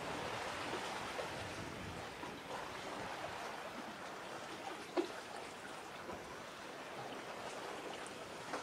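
Small waves lapping at the shore, a steady watery rush with one sharp click about five seconds in.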